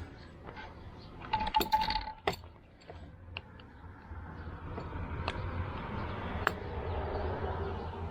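Metal tools clinking and scraping against a small-engine carburetor while a corroded main jet is worked loose. A quick flurry of clinks with a brief metallic ring comes about one and a half seconds in, then single sharp clicks follow.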